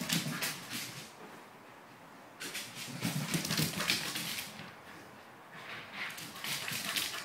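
Pembroke Welsh Corgi's claws clicking and paws thudding on a hardwood floor as he runs past at full speed. It comes in three rushes of rapid clicks: one at the start, one about two and a half seconds in, and one near the end, with quieter gaps between.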